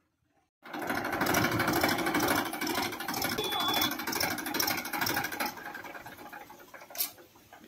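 Massey Ferguson DI diesel tractor engine running with a fast, rattling beat. It cuts in abruptly about half a second in and dies away over the last two seconds.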